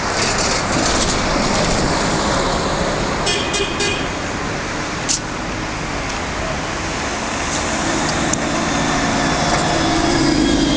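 Steady street traffic with vehicles passing on a busy road. About three and a half seconds in comes a quick cluster of short high-pitched toots, and a single sharp knock follows about five seconds in.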